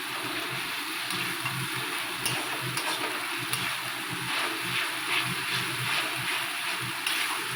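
Onion, garlic, ginger and curd masala sizzling steadily in an oiled kadai on the stove.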